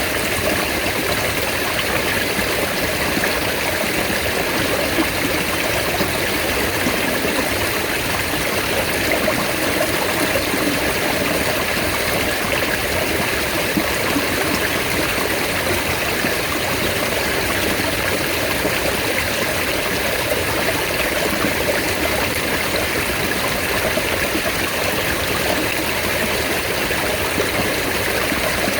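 Mountain stream flowing steadily, an even rush of water.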